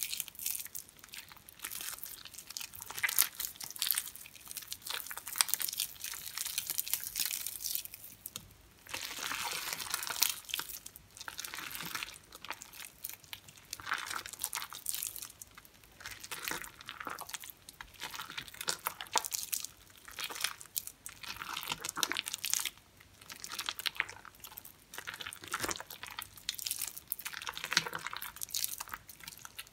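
Hands squeezing and kneading soaked, mushy soap chunks in sudsy water. The wet squishing comes in irregular bursts with short pauses between squeezes.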